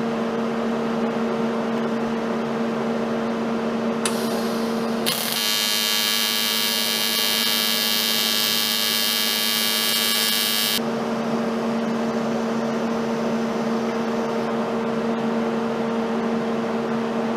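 Steady electrical hum, with a louder, hissing buzz for about six seconds in the middle.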